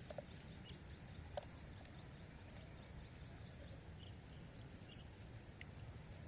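Near silence: faint outdoor ambience with a few brief soft ticks and chirps.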